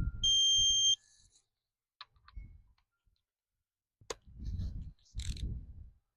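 A single electronic beep, a steady high tone lasting under a second at the start, followed by a few sharp clicks and the low clatter of tools being handled.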